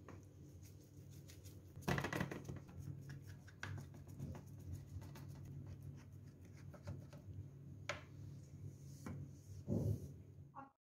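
A white plastic smoother pressing and scraping a layer of coconut burfi mixture flat in a steel tray: quiet rubbing and scraping, with a few sharper knocks of tool on tray, the loudest about two seconds in and near the end.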